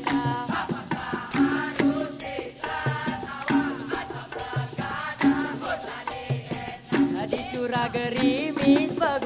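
Dikir barat performance: a chorus singing together over rebana frame drums and a gong, with regular percussion strokes.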